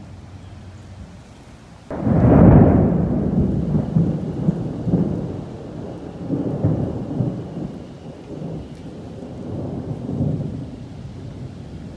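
Thunder: a sudden loud clap about two seconds in, then rolling rumble that swells and fades several times.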